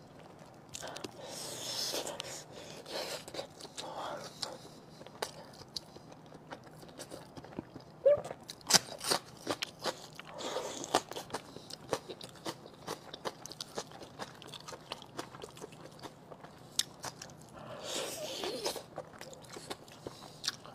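Close-miked mouth sounds of eating pork large intestine stuffed with pig brain in a thick chili sauce: chewing with many sharp, wet clicks and smacks, loudest about eight to nine seconds in.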